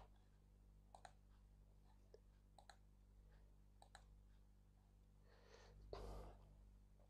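Near silence: room tone with a few faint, short clicks and a soft noise near the end.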